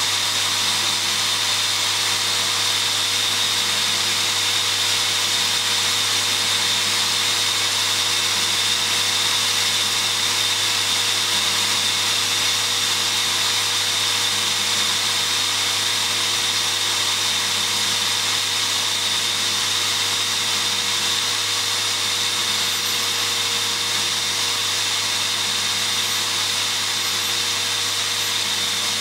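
Rotary-tool toolpost grinder running with a steady high-pitched whine, its small grinding wheel spinning inside the bore of a steel ER32 collet holder to grind an internal taper.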